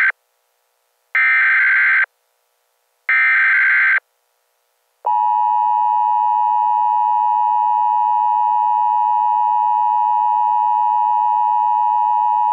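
Emergency Alert System opening tones: the end of one SAME header data burst, then two more harsh digital bursts about a second long and a second apart, followed about five seconds in by the steady two-tone EAS attention signal, which holds unbroken to the end.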